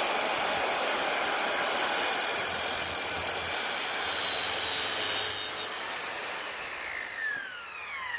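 Ryobi circular saw with a Diablo non-ferrous metal blade cutting through two lengths of aluminium square tubing: a loud, steady high-pitched whine. About six seconds in the cut is done and the motor winds down, its whine falling in pitch.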